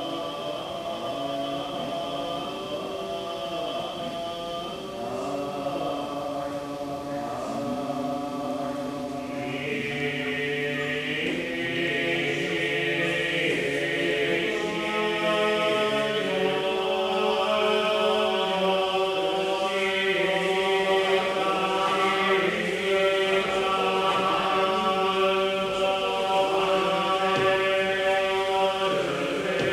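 Shin Buddhist sutra chanting: a group of voices in long, held tones, growing louder from about ten seconds in.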